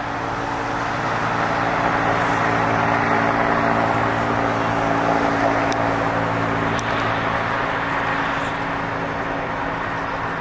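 A line of cars, SUVs and police vehicles driving past on a city street: a steady low engine hum with tyre and traffic noise. It swells over the first few seconds and then eases.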